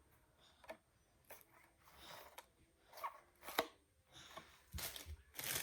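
Handling of eyelash packaging: scattered light taps and clicks, then crinkling starting near the end.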